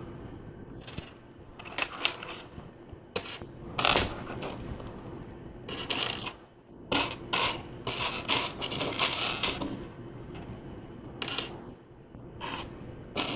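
Small plastic LEGO pieces clicking and clattering as they are handled, sifted through and snapped together, in irregular clicks with a few louder clacks and a longer rattling patch around the middle.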